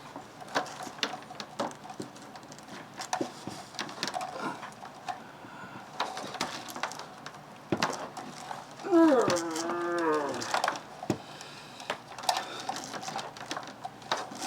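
Scattered clicks, taps and rattles of computer cables and plugs being handled and pulled. About nine seconds in, a man lets out a long, drawn-out groan that wavers in pitch, the loudest sound.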